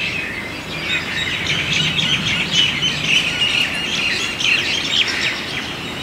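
Many small birds chirping, a dense chorus of short high calls that goes on without a break.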